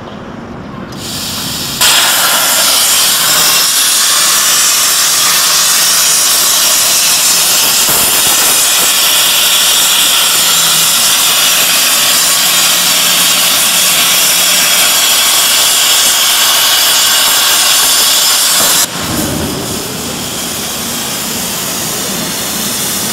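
High-power CNC plasma torch cutting 25 mm carbon steel plate: a soft hiss, then a loud, steady hiss that starts suddenly about two seconds in as the arc strikes. It cuts off abruptly near the end when the cut finishes, leaving a quieter hiss.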